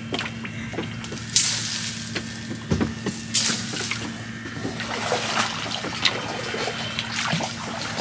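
Water splashing and trickling, with two brief louder splashes about a second and a half and three and a half seconds in, over a steady low hum.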